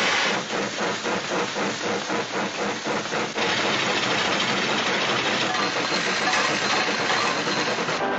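Steam locomotive sound effect: rhythmic chuffing at about four beats a second, giving way about three seconds in to a steady hiss of steam.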